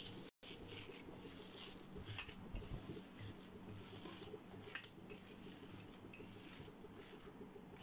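Faint irregular pattering and clicking as chana dal vada batter is handled in a steel bowl and a portion is dropped into hot oil, over a low steady hum.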